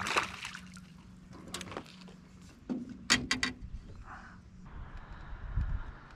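A hooked panfish splashing at the lake's surface as it is lifted, followed by a few sharp clicks and a soft trickle of water.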